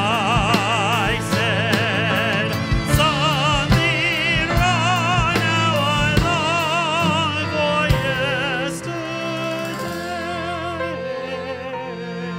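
Live music: a male singer holding long notes with wide vibrato over violins, acoustic guitar and drum hits. About nine seconds in, the band drops back and the music grows softer.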